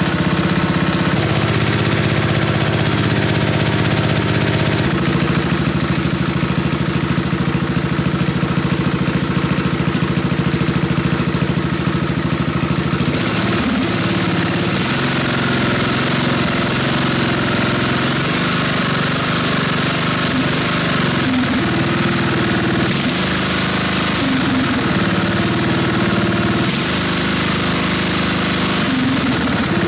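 Briggs & Stratton 17.5 HP single-cylinder engine on a Craftsman LT 2000 lawn tractor, running just after starting. It runs steadily at first, then its speed wavers up and down through the second half.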